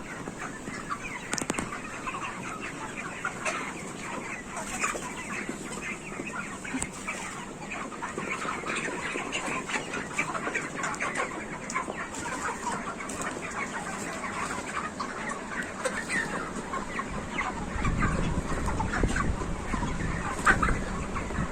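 A large flock of broiler chickens clucking and chirping in a dense, continuous chatter of many overlapping short calls. A low rumble joins in about three-quarters of the way through.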